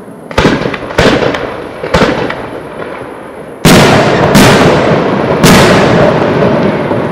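Aerial firework shells bursting: three sharp bangs in the first two seconds, then three louder bursts in quick succession from about three and a half seconds in, each trailing off in echo.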